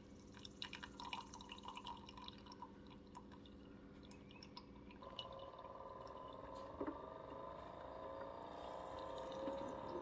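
Keurig K-Supreme Plus single-serve brewer dispensing hot coffee in a thin stream over ice into a tall glass, faint dripping and trickling with small clicks. A steady low hum runs for the first half; about halfway through it gives way to tones that rise slowly as the glass fills.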